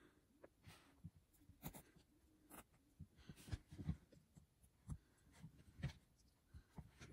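Faint clicks and handling noise of small plastic LEGO plates being picked up and pressed together into a stack, a soft click roughly once a second.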